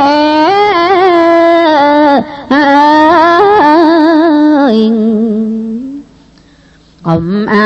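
Smot, Khmer Buddhist chanted verse: a single voice sings long, wavering held notes with ornamented turns. It breaks off briefly about two seconds in, settles on a lower held note, and falls quiet for about a second before the next phrase begins near the end.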